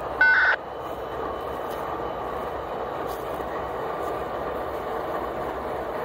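Steady running of idling Norfolk Southern diesel-electric freight locomotives on a stopped, tied-down train. Just after the start, one short, loud beep with several overtones cuts across it.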